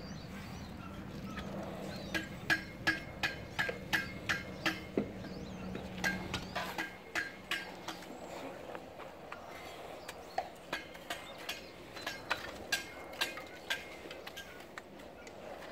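A metal tool tapping on hollow ceramic bricks during bricklaying: two runs of quick, sharp, ringing taps, a few a second, with a pause between them. A low steady hum underneath stops about six seconds in.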